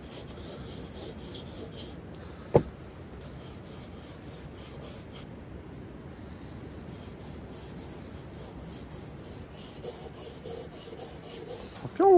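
Steel knife blade stroked back and forth on a whetstone, first coarse (400 grit) then finer (1000 grit): a rhythmic scraping rasp of about three strokes a second, pausing twice. A single sharp knock comes about two and a half seconds in, and a short pitched sound falling in pitch, like a voice or call, comes right at the end.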